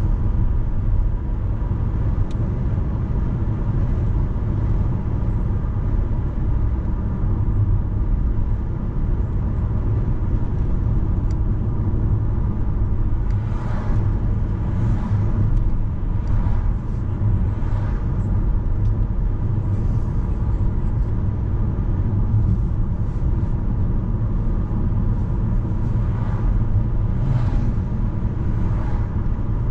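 Steady road and engine rumble heard from inside a moving car's cabin, with a few brief swishes as oncoming cars pass, twice near the middle and once near the end.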